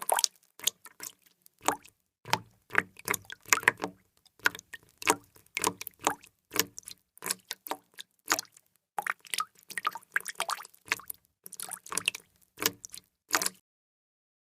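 Water drops falling and splashing in an uneven patter, several drops a second, stopping suddenly shortly before the end.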